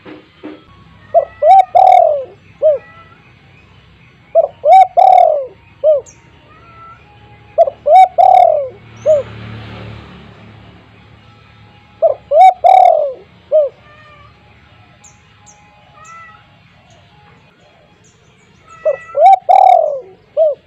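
Spotted dove cooing: five phrases a few seconds apart, each a short run of low notes around one loud, drawn-out coo. Faint chirps of small birds sound between the phrases.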